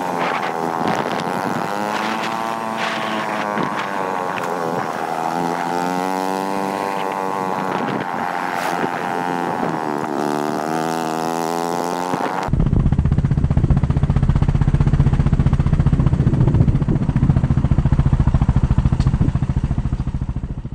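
Small motorcycle engine running while the bike is ridden, its pitch rising and falling with the throttle. About twelve seconds in, the sound cuts to a louder, steady low drone.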